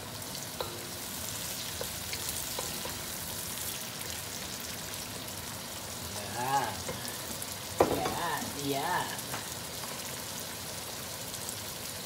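Sautéing ingredients, tomato among them, sizzling steadily in a hot pan as they are stirred, with one sharp knock about eight seconds in.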